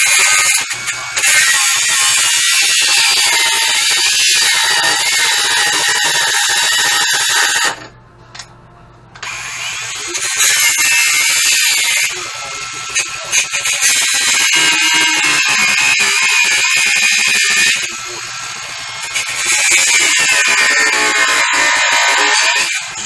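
Electric angle grinder running and grinding metal, a loud high-pitched whine whose level and pitch swell and dip as it works. It stops about eight seconds in and starts again a second or so later.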